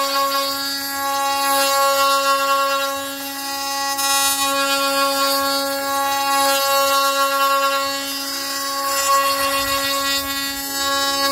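Drill press running steadily with a steady motor whine while an end-mill bit cuts a slot in a wooden board; the cutting noise rises and falls as the bit works through the wood.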